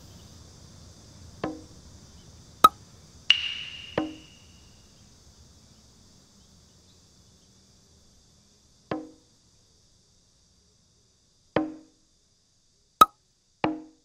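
Hollow bamboo tubes knocked one at a time, giving five pitched wood-block-like notes a few seconds apart, as cartoon footsteps across a bamboo-tube bridge. Two sharp clicks and one short high chirp fall between them.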